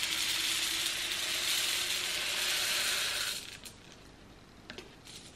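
Scent booster beads poured from a carton into a plastic bottle: a steady hiss of many small beads falling, which stops about three seconds in, followed by a few faint clicks.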